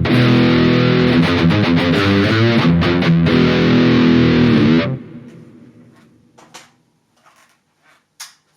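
Harley Benton ST80 FR HH electric guitar played through a Fractal Audio FM9 on a distorted high-gain rhythm tone, holding a loud ringing chord riff. The playing stops about five seconds in and the sound dies away, leaving a few faint clicks of string and handling noise.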